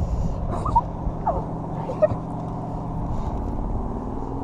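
Small boat motor running steadily with a low rumble, with a few short faint chirps over it.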